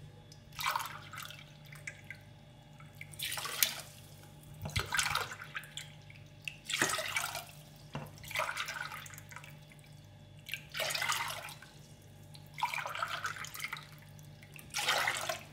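Water poured from a plastic bottle into a drinking glass and the glass tipped into a stainless steel saucepan of sugar, again and again: about eight short splashing pours with pauses between. This is four glassfuls of water being measured onto the sugar for a syrup.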